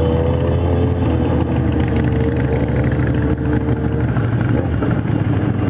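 Several motorcycle engines running at low speed in a slow-moving group ride, a steady engine drone whose pitch sinks slightly over the first few seconds as the pace eases, with wind and road noise.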